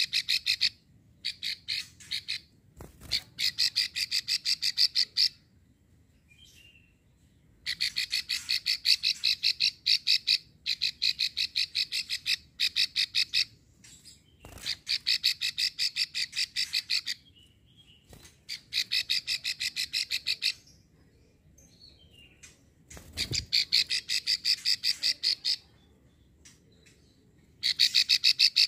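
Female plain prinia (prenjak sawah) giving its long rasping 'ngekrek' call: bouts of very fast, evenly spaced clicks, each one to three seconds long, repeated about eight times with short pauses. A few soft thumps come from the bird hopping in its cage.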